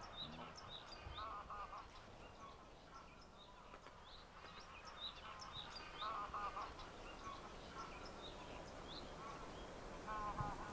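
Outdoor bird ambience: many short, high chirps scattered throughout, with a few short runs of lower calls about a second and a half in, around six seconds and near the end.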